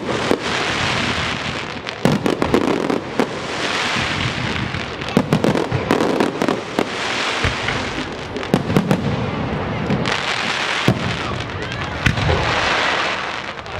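Fireworks going off: volleys of sharp bangs every couple of seconds, with a dense crackling hiss in between.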